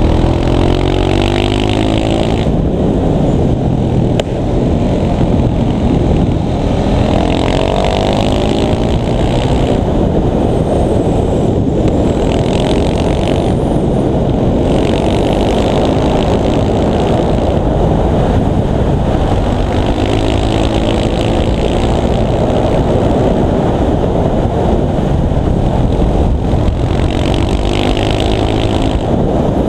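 KTM 690 SMC supermoto's single-cylinder engine under way, rising in pitch several times as it accelerates through the gears. Heavy wind rush on the helmet camera's microphone runs under it.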